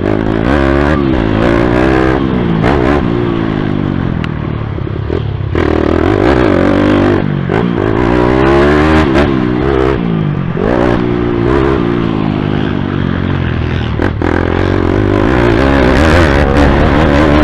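YCF pit bike's single-cylinder four-stroke engine revving up and dropping back over and over as the rider accelerates and shifts along the dirt track, heard close from the rider's helmet. Scattered short knocks sound over the engine.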